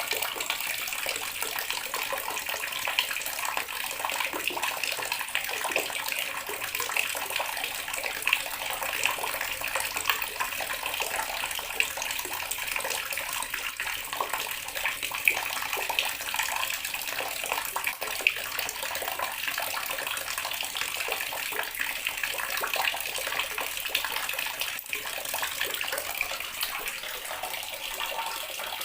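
Water running steadily from a tap, splashing into the water below in a constant, even stream.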